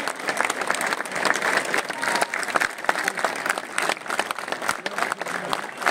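Stadium crowd applauding, many hands clapping close by, over a hum of crowd voices.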